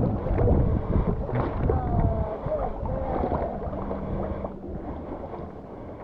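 River water sloshing and lapping against a camera held at the surface as a pit bull swims beside it, muffled and close. It eases off a little toward the end.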